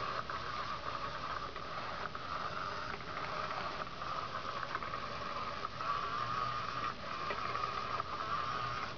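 Battery-powered Undercover Mouse cat toy running: a small motor whirring steadily, with light clicks from the wand moving under its fabric skirt.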